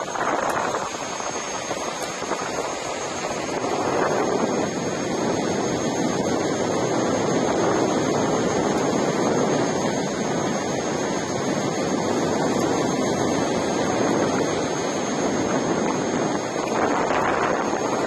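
Steady rushing wind noise on the microphone with road noise from rolling at riding speed alongside a Gotway Tesla electric unicycle on asphalt; no motor sound stands out.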